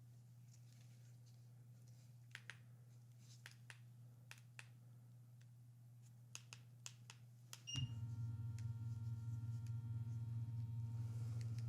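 A few light clicks and taps, then about two-thirds through a short electronic beep as a device switches on, followed by a steady, louder electrical hum.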